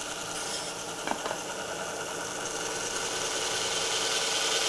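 Gem-polishing machine running, its tin-lead lap spinning, with a light click about a second in; from about halfway a scraping hiss builds as the aquamarine is pressed onto the lap charged with aluminium oxide polish.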